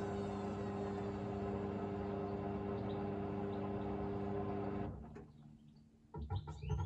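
Hoover VisionDynamic washing machine at the end of its cycle: a steady mechanical hum with a faint falling whine that cuts off suddenly about five seconds in. A few short clicks and knocks follow near the end.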